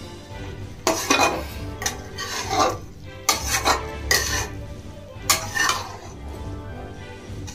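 Metal spatula scraping and stirring in an aluminium kadai, turning vadas through thick masala gravy, in a series of separate scrapes about every half second to second.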